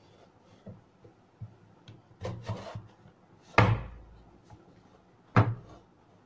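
Wooden boards of a homemade wooden press frame knocked and slid into place by hand: a few light knocks and some wood-on-wood rubbing, then two sharp wooden knocks nearly two seconds apart, the second near the end.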